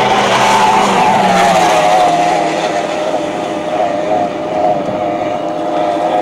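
C-8 Hydrocat race boat's engine running at high revs as the boat speeds across the water: a steady high whine that wavers slightly and drops a little in pitch over the first couple of seconds.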